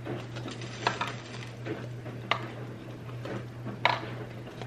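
Clear plastic cups being set down one at a time on a marble board: three light taps about a second and a half apart, over a steady low hum.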